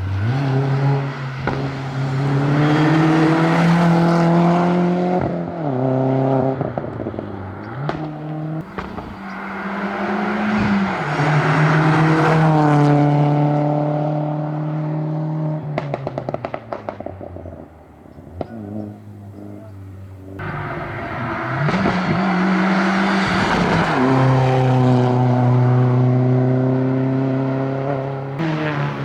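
Rally cars accelerating flat out on a tarmac stage, engine pitch climbing and dropping with each upshift over several runs. A rapid run of sharp crackles comes around the middle, as the engine note falls away.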